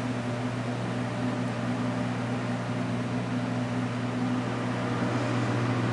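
Steady low mechanical hum with an even hiss from restaurant kitchen machinery, holding one unchanging pitch.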